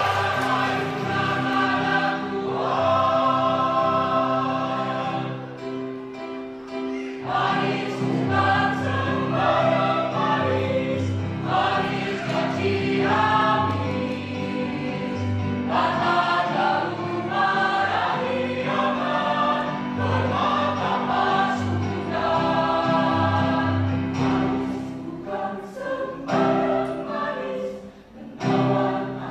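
A choir of mostly women's voices with a few men singing a song in several parts, holding notes and moving from phrase to phrase, with a short drop in level near the end between phrases.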